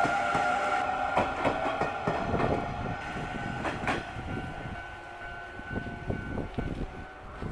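A train passing over a level crossing, its wheels clacking over the rail joints and fading as it moves away, with a steady high tone running through it.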